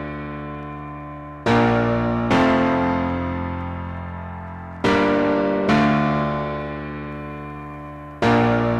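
Background piano music: slow sustained chords, each struck and left to ring and fade, a new one every second or two.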